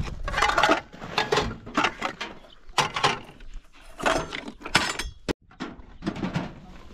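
A series of irregular clinks and knocks of hard objects striking one another, with one sharp knock a little past five seconds in.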